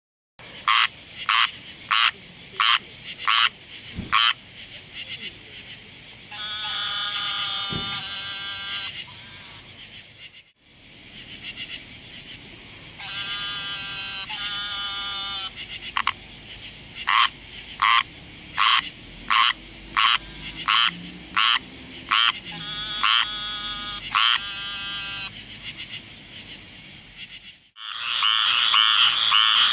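Squirrel treefrogs calling: short raspy notes repeated about one to two a second, with spells of longer trilled calls, over a steady high-pitched drone. Near the end a denser chorus takes over.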